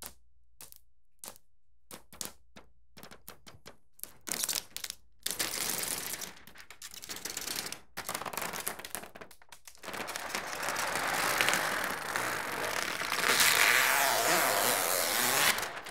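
Protective plastic film being peeled off a TV screen. It starts with a few faint separate crackles, then turns into continuous crinkling and crackling that grows louder over the second half as the large sheet comes away.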